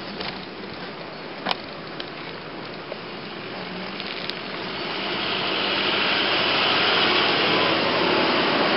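Wind rushing over the camera microphone, with the rustle of flag cloth rubbing near it, growing louder about five seconds in. A single sharp tap sounds about a second and a half in.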